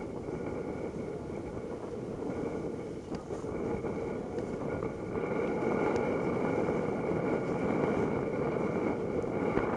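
Water rushing and splashing along a sailing schooner's hull as she moves under sail, with wind buffeting the microphone. A faint steady high whistle runs above it.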